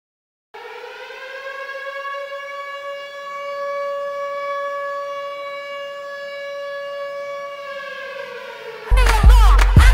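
A long siren wail held on one pitch for about eight seconds, sliding slightly up as it starts and sagging slightly as it fades. Loud hip hop music with heavy bass cuts in near the end.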